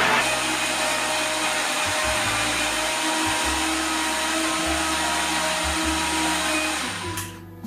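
Countertop blender running steadily at speed, puréeing cooked butternut squash soup. It is switched off about seven seconds in and quickly winds down.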